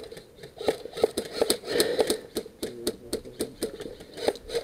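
Airsoft gunfire exchanged: irregular sharp clicks and snaps, some bunched into short rattling strings.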